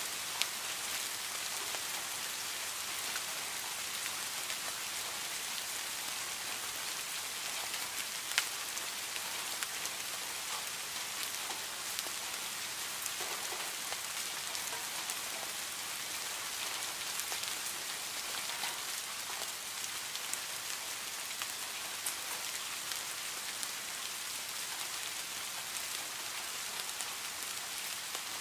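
Steady rain falling on leaves and grass: an even hiss with scattered close drop taps, and one sharper drop hit about eight seconds in.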